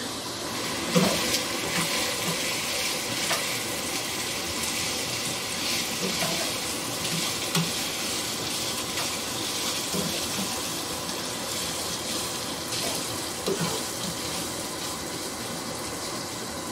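Crumbled Italian sausage sizzling as it browns in a nonstick frying pan, with a spatula scraping and knocking against the pan now and then while the meat is broken up and stirred.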